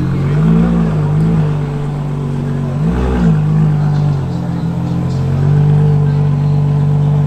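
Ferrari Monza SP2's 6.5-litre V12 idling, with two brief rises in revs, one about half a second in and a sharper one around three seconds in, then holding a steady idle.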